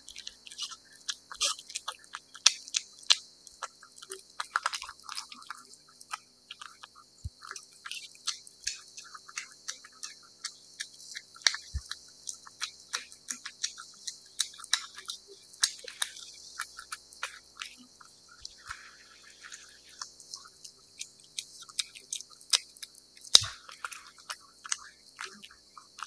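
A cat chewing wet food: a rapid, irregular run of small sharp clicks, several a second, with a louder one now and then.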